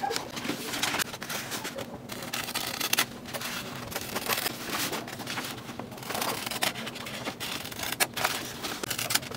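Scissors cutting through a large sheet of paper in repeated irregular snips, with the paper rustling as it is held and pulled apart.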